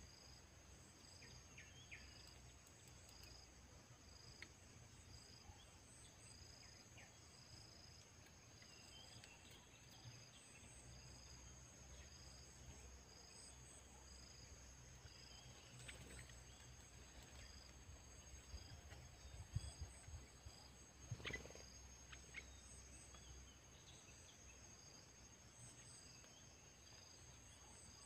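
Faint chorus of insects: a chirp pulsing a little under once a second over a steady high hum. A few sharp clicks come about two-thirds of the way through.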